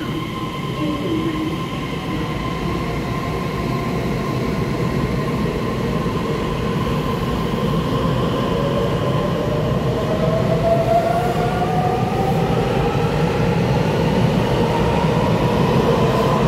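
A TRA EMU3000 electric multiple unit pulling along an underground platform, its motors whining higher and higher as it gathers speed, over wheel rumble that grows louder.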